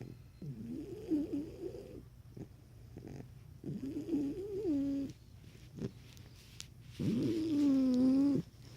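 Cane Corso puppy snoring in her sleep: three long snores a couple of seconds apart, each with a pitched, whistling tone, the last one the longest and loudest.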